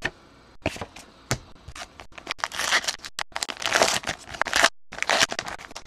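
Hands tearing open and crinkling the wrapper of a 2019 Allen & Ginter trading card pack. A few sharp clicks come first, and the crinkling gets denser about two seconds in.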